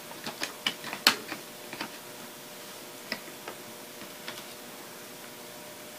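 Sharp plastic clicks and snaps as a box cutter blade pries the hard-plastic LCD frame liner of a Lenovo ThinkPad T61 up off the screen's metal frame, unseating its glue. A quick run of clicks in the first two seconds, the loudest about a second in, then a few scattered clicks.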